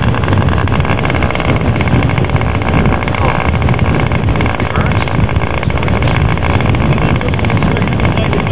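Small model aircraft engine of an RC scale Messerschmitt Bf 109 running steadily as the model taxis on the runway, a fast, even buzz.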